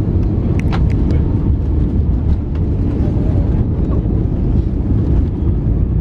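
Steady low rumble of engine and airflow noise inside an Airbus A320 airliner's cabin during the landing phase, with a few faint clicks about a second in.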